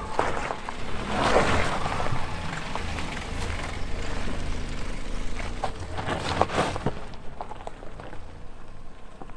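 Four-wheel-drive car driving off-road through mud: the engine runs low under load, with noisy bursts of mud and water splashing about a second in and again around six seconds in.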